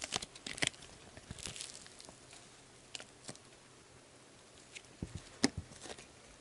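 Blue Melmito Softy slime being stretched and pulled apart by hand, giving faint scattered crackles and small clicks, with one sharper click about five and a half seconds in.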